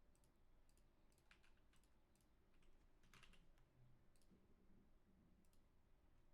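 Near silence with faint, scattered clicks of computer input as cards are moved around in a deck-building website.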